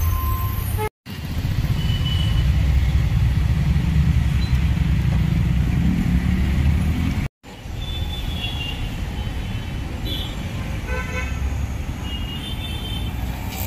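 Street traffic: vehicle engines running with a low rumble and road noise, and a few short horn toots now and then. The sound cuts out for a moment twice.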